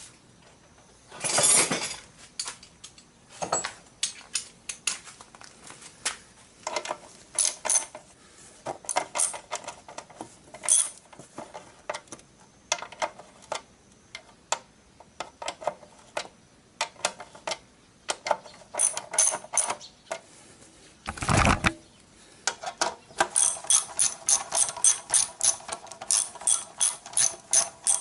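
Ratchet wrench clicking in short runs as bolts are worked on a motorcycle near its drive chain, with a fast even run of clicks near the end. Two heavy knocks, one near the start and one about three-quarters through, stand out as the loudest sounds.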